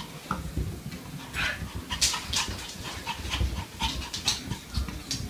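Small dog panting, with soft thumps as it hops down carpeted stairs.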